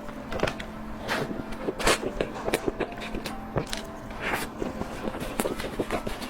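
Close-up eating sounds: irregular bites, chewing and crunchy crackles, with a steady low hum underneath.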